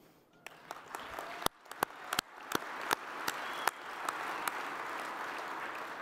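An audience applauding. A few scattered claps come first, then within a couple of seconds it swells into steady full applause.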